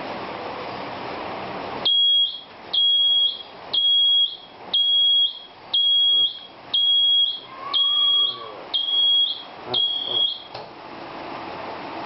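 Electronic alarm buzzer on a rear-wheel torque checking machine beeping nine times, about once a second, each a high steady tone lasting a little over half a second. A steady background noise runs before and after the beeps.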